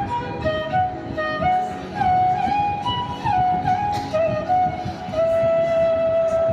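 Background music: a single melody line moving note to note, with short slides between some notes and one long held note near the end, over a low accompaniment.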